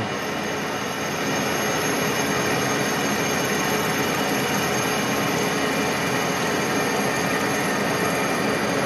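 Milling machine running steadily, its spindle turning an end mill as it is fed down into the bore of a differential input flange, with a steady mechanical whine and cutting noise.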